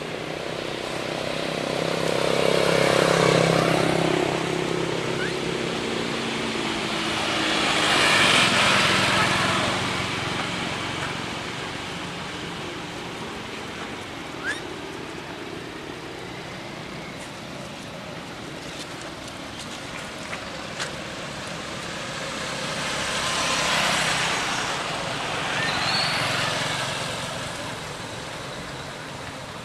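Motor vehicles passing on a road, each swelling and fading over several seconds, four times. The first has a low engine hum. A few brief high chirps come between them.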